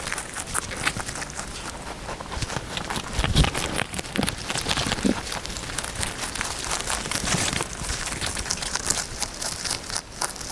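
A pet rabbit moving about: a steady run of light rustling, crinkling and scratching noises, with one louder low thump about three and a half seconds in.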